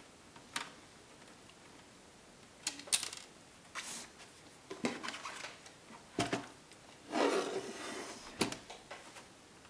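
Scattered light clicks, taps and rubbing from hands and a small screwdriver working on a Toshiba Satellite laptop's plastic screen housing and keyboard while the screen-side screws are taken out. The sharpest click comes about three seconds in, and a longer scrape or rub follows around seven seconds.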